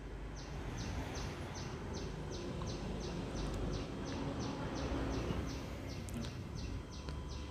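A high chirp repeating evenly about three times a second, from a small animal, over a faint steady background hiss.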